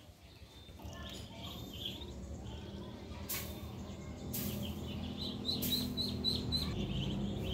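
Ducklings peeping: short high chirps, with a quick run of about four a second in the second half. Under them is a low rumble that grows louder, and a few brief scratchy noises.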